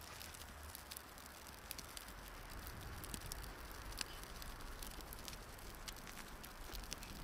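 Wind buffeting the microphone with a low rumble, under a faint steady hiss and scattered light ticks and crackles.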